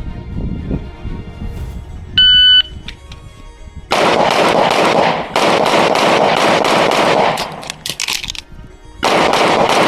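A shot timer's electronic start beep, then rapid strings of pistol shots from a .38 Super compensated open-class pistol. The shots come in a long fast string starting about four seconds in, then resume after a pause of about a second and a half.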